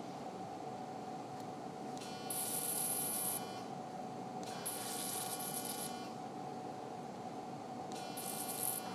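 Electrosurgical unit's activation tone buzzing three times, each for about one to one and a half seconds, as the handheld electrocautery pencil is keyed on, a sign that the electrode is energised. A steady hum runs underneath.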